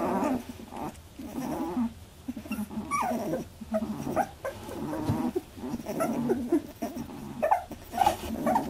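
Labradoodle puppies about 18 days old making a string of short whines and squeaks, with a falling squeal about three seconds in.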